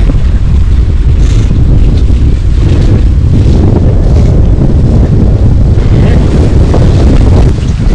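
Wind buffeting the microphone: a loud, low rumbling noise with no clear tones.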